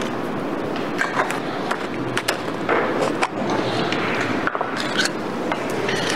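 Irregular sharp clicks and knocks over a steady rolling, clattering noise.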